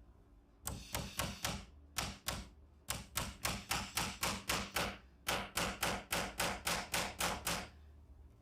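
Hammer tapping a nail into hard wood to make pilot holes for screws. The strikes come in runs of quick blows, about five a second, with short pauses between the runs.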